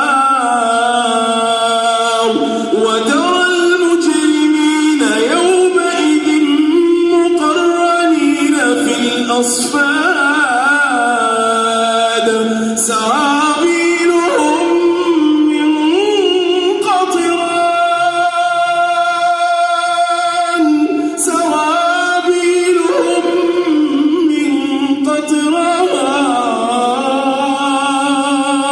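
Solo voice reciting the Quran in a slow, melodic style: long held notes with ornamented turns in pitch, broken by short pauses for breath.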